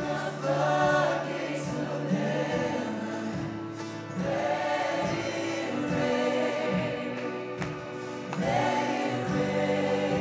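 Worship music: a group of voices singing in swelling phrases over sustained low chords.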